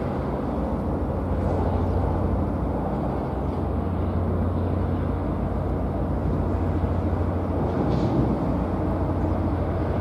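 Coast Guard patrol vessel under way: its engines give a steady low drone under the rushing wash of its wake.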